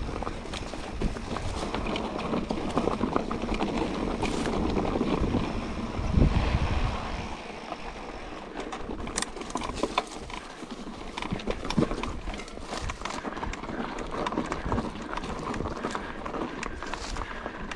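Mountain bike rolling downhill on a dirt trail: tyres crunching over loose ground, with frequent clicks and rattles from the bike and wind rumbling on the microphone, the rumble easing after about seven seconds.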